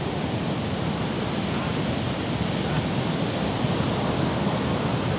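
Ocean surf breaking on the beach: a steady rushing wash of waves.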